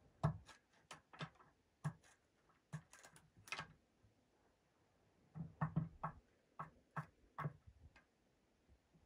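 A series of irregular sharp knocks and clicks, with a pause of about a second and a half in the middle.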